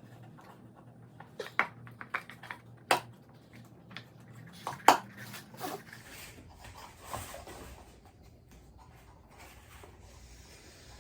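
Light clicks and knocks of small birdhouse-kit pieces being handled and fitted together, with several sharp taps in the first half, the loudest about five seconds in, then only faint handling.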